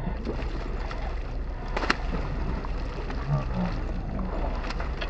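Boat engine idling with a steady low hum under a wash of water. A few short, sharp splashes come from a hooked mahi-mahi thrashing at the surface beside the boat.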